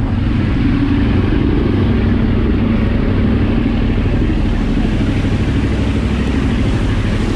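A passenger ferry's engine running steadily at cruising speed: a low, even drone over the rush of the churning wake and wind.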